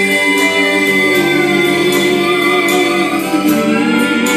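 Gospel song: long held notes of voices and instrumental backing, sustained between sung lines.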